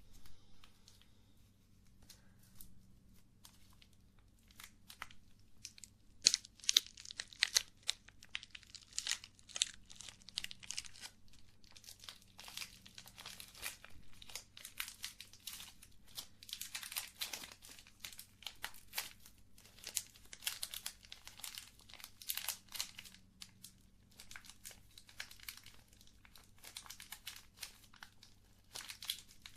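Close-up crinkling and crackling in quick, irregular bursts. The bursts start about six seconds in, after a quiet stretch with a few faint clicks.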